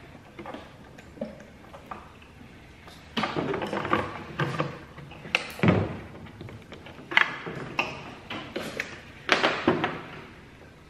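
Irregular clicks, knocks and scrapes of a plastic light housing and small parts being handled, sparse at first and busiest from about three seconds in.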